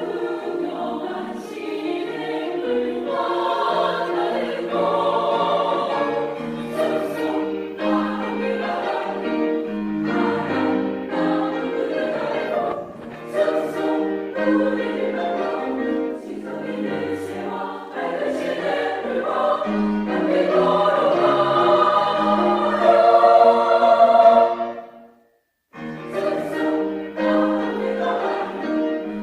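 Women's choir singing in several voice parts, building to its loudest passage, then breaking off for about a second near the end before resuming.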